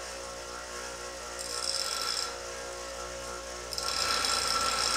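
Bench grinder running while a K20 Type S oil pump housing is pressed against its wheel to grind metal off. There is a short grind about a second and a half in, then steadier, louder grinding from about four seconds on.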